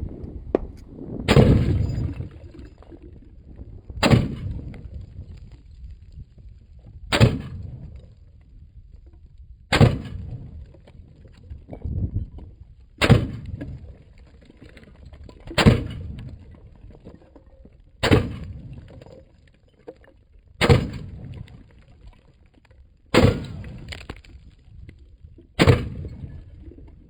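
Gunshots fired one at a time at a steady pace, about ten in all, roughly every two and a half seconds, each with a short echo after it.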